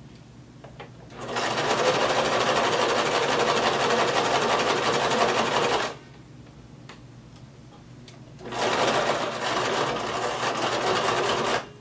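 Domestic sewing machine stitching a seam through layers of denim in two runs, about four and a half seconds and then about three seconds, with a pause between.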